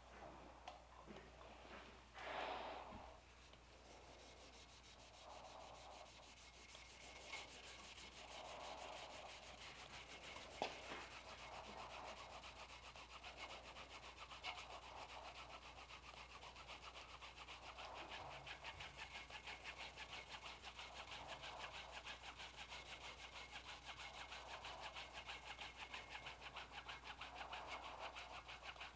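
Red stretch wrap being pulled off and wound tightly around a freshly epoxied knife handle to clamp the glue-up: a faint, fast, even crackling rub that starts a few seconds in, with a few light knocks of handling.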